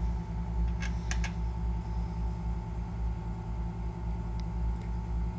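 Steady low hum of a Juki industrial sewing machine's motor running idle, with a few light clicks about a second in and again near the end.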